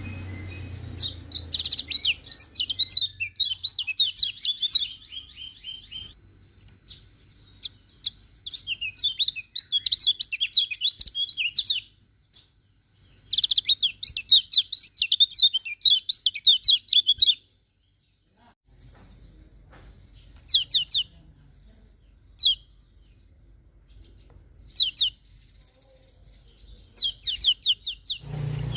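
Kecial kuning, a small yellow white-eye, singing: three long runs of rapid, high twittering song, then a few short separate calls near the end.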